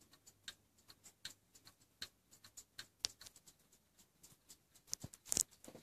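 Antique French 8-day mantel clock movement ticking steadily, a few quick ticks a second, as its long pendulum swings. A louder knock comes near the end.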